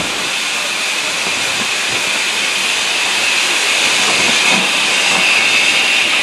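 BR Standard Class 4MT 2-6-4T tank locomotive hissing steam steadily as it draws slowly past. The hiss grows gradually louder as the engine comes alongside.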